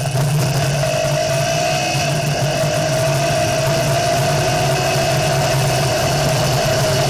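Off-road buggy engine running steadily while driving along a dirt road, with an even hiss of wind and road noise.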